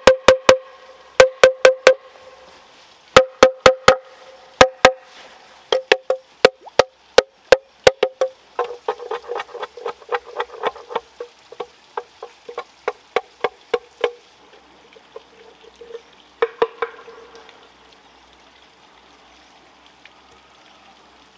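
A machete striking a hollow bamboo tube: sharp knocks in twos and threes, each with a short hollow ring. About eight seconds in, the strokes come faster and lighter, then thin out to a few scattered knocks after about fourteen seconds.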